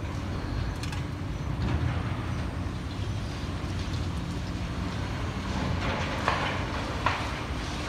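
Heavy demolition machinery running with a steady low rumble, and two short sharp knocks near the end.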